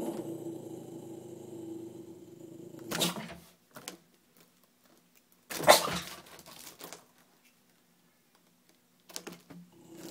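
Rubber balloon bumping and brushing against the phone's microphone, loudest about halfway through, with smaller bumps near the end. Before that, a steady pitched hum lasts about three seconds.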